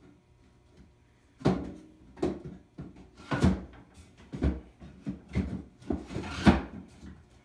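Aluminium screen-printing frame, freshly coated with emulsion, being slid into a slot of a wooden drying-cabinet rack: a run of knocks and scrapes of frame on wood, starting about a second and a half in, the loudest near the end.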